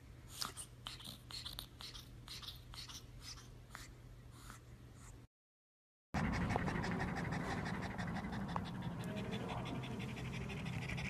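Faint short sounds for about five seconds, then after a brief gap a pug panting rapidly through an open mouth, noticeably louder.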